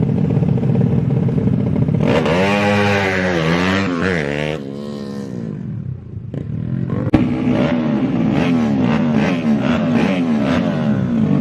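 Small tuned underbone motorcycle engines revving up and down, with a surge of revs about two seconds in. The engines drop back briefly midway, a sharp click comes about seven seconds in, and then they pick up again.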